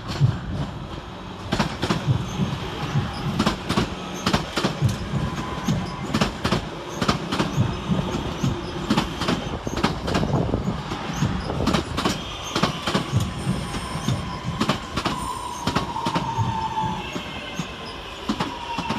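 Two coupled Class 323 electric multiple units arriving, their wheels clicking over rail joints in a dense, irregular run, with a squealing tone that falls in pitch about two thirds of the way through as the train slows.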